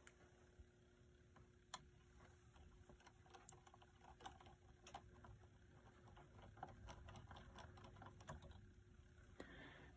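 Faint, scattered small clicks and taps of a fine screwdriver and small metal clock parts being handled as a tiny screw is undone and the start lever is worked off an electric clock movement.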